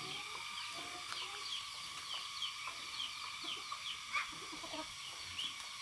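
Farmyard chickens clucking softly, with many short high chirps over a steady high background tone.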